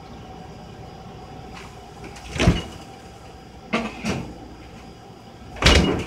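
Handling noise on the kitchen counter: a bump about two and a half seconds in, a quick double knock a second later, and a louder bump near the end, over a steady low hum.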